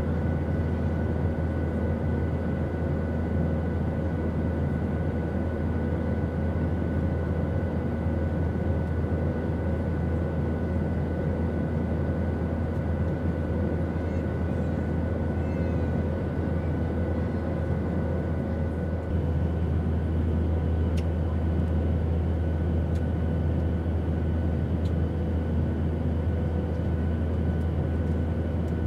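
Steady airplane noise: a constant low drone with a rush of air and a few faint steady whining tones. About two-thirds of the way through, the drone gets slightly louder and the whine shifts to a different pitch.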